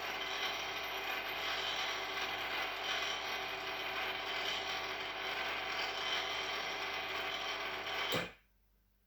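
AR-500 antenna rotator's motor and gearbox running steadily with a mechanical gear hum. It cuts off abruptly about eight seconds in, as the rotator reaches its zero position and stops.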